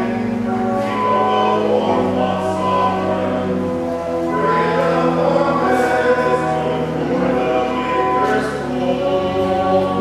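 Mixed church choir of men's and women's voices singing an anthem together in held chords.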